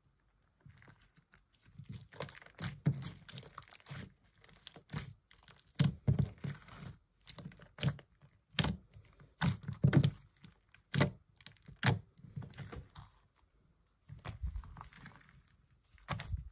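Hands kneading, squishing and stretching a fairly stiff slime as lotion is worked into it, giving irregular wet clicks and pops, with a short pause near the end.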